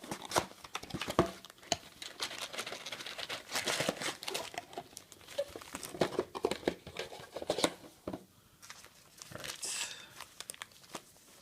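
A trading card pack wrapper being torn open and crinkled by hand, with irregular rustling and sharp crackles throughout.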